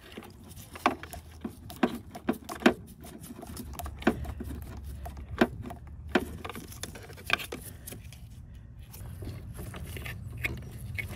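Irregular clicks and light rattles of a plastic connector cap and wiring being handled and fitted by hand for an LED headlight bulb, over a faint steady low hum.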